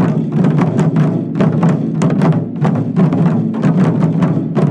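Japanese taiko drums (wadaiko) played in a fast, dense run of strikes, with sharp clicking hits over the deep drum tones.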